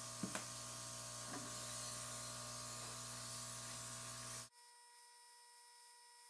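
Faint steady mains hum and hiss, with a few small clicks in the first second and a half. About four and a half seconds in it cuts off abruptly to near silence with only faint steady tones.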